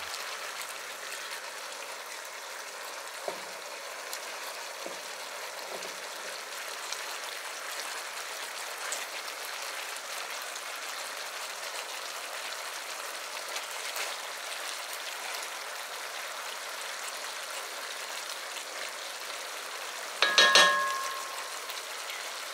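Chicken pieces sizzling gently in a pot, a steady hiss, as minced garlic is stirred in with a silicone spatula, with a few faint soft ticks. About twenty seconds in comes a short ringing clink.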